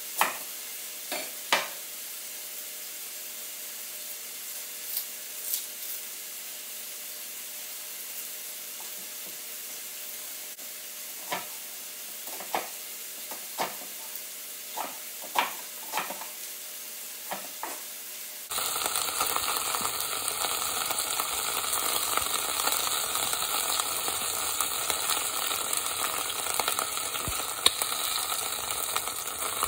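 A kitchen knife chopping an onion on a wooden cutting board: a dozen or so sharp knocks at uneven intervals. About 18 seconds in, this gives way to a louder, steady sizzle of meat frying in oil in a pan.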